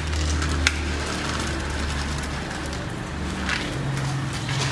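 A steady low motor-like hum that shifts to a slightly higher pitch about three and a half seconds in, with a few faint clicks.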